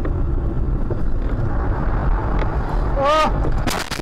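Car cabin road and engine rumble while driving on a snowy road, then a short wavering cry from a person about three seconds in, followed near the end by a crash: several sharp impacts as the car hits the snow.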